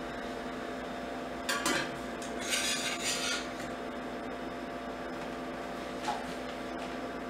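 Metal doll stand being assembled: the rod scrapes and grates against the metal base plate as it is fitted and screwed in, in two short bursts, then a light click a few seconds later. A steady hum runs underneath.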